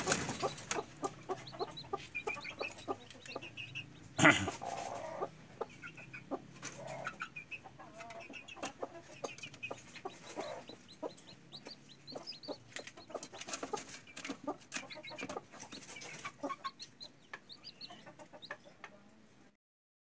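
Newly hatched chicks peeping in short, high repeated calls beside a broody hen on her nest, with soft clucking. There is one loud thump about four seconds in.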